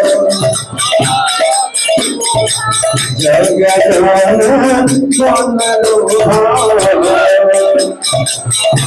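Devotional kirtan chant: a man singing the lead into a microphone over a quick, steady beat of percussion and hand-clapping.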